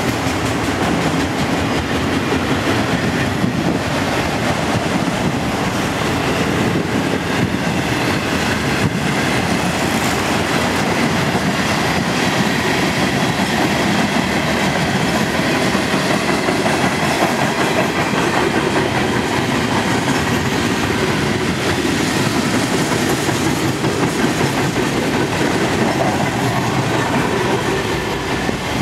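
Freight cars of a mixed manifest train rolling past at close range: steady rumble and rush of steel wheels on the rails, with occasional knocks and a faint high steady whine.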